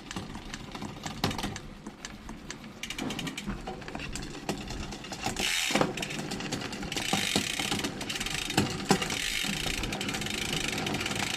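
Bicycle drivetrain turned by hand: the chain runs over the cassette with quick ratchet clicking from the rear hub's freehub pawls, and a newly paired SRAM AXS X01 electronic rear derailleur shifts the chain across the cogs. The denser running noise comes in spells, about halfway through and from about two-thirds of the way on.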